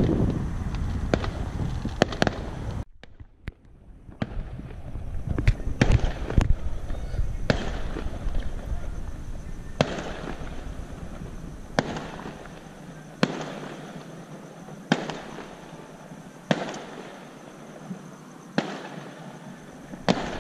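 Distant fireworks going off: sharp bangs at irregular intervals over a low rumble for the first few seconds, then spaced out roughly every second or two.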